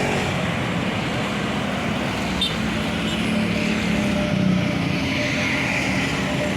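Tour buses in a convoy driving past, their engines running with steady road and traffic noise, a low engine hum swelling and fading about halfway through.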